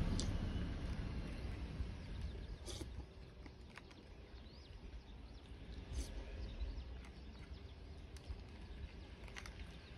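Quiet outdoor ambience with faint bird chirps, and a low rumble fading away over the first two seconds. A few light clinks of a spoon against a bowl come about three, six and nine seconds in.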